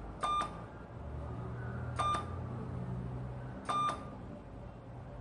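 Radiofrequency surgical unit giving three short electronic beeps at an even pace, about one every second and three-quarters, over a low steady hum.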